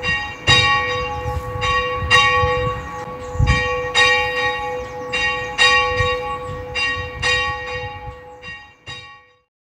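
Church bell ringing, struck again and again, each strike leaving a long ringing tone. The strikes thin out and the ringing dies away shortly before the end.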